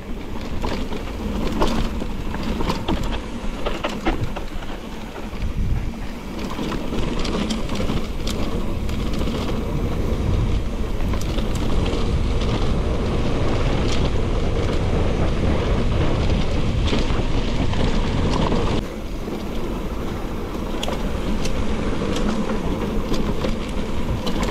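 Mountain bike riding over a rough, rocky trail: tyre noise on dirt and stone, with the bike rattling and clattering over bumps and wind rumbling on the microphone.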